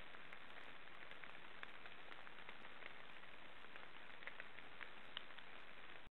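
Steady, even hiss with faint, scattered ticks, and no breathing rhythm.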